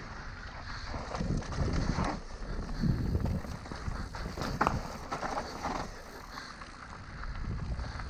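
Mountain bike descending a dirt forest trail: wind buffeting the microphone over the rolling of knobby tyres on dirt and leaves, with sharp knocks and rattles from the bike over bumps in the middle of the stretch. It eases off near the end.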